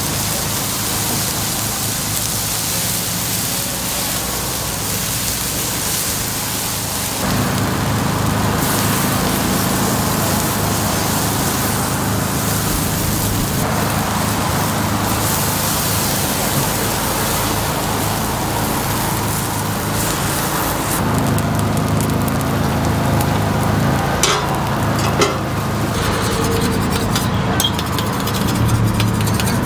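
Takoyaki batter sizzling steadily on a hot takoyaki griddle as it is poured over the octopus pieces. A low hum joins about seven seconds in, and a few clicks come near the end.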